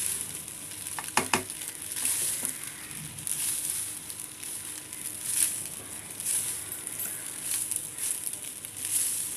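Fried rice sizzling in a nonstick pan as it is stir-fried, turned over and over with a spatula, each stroke scraping and swishing about once a second.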